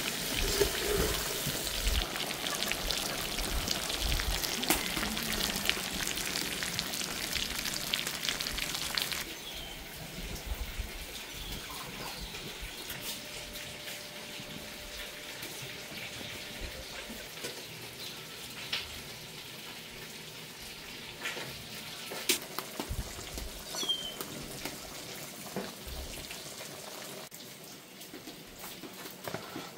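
Ribs and shank pieces frying in hot oil as they brown, a dense sizzle full of crackles and pops. About nine seconds in it becomes much quieter, with scattered pops.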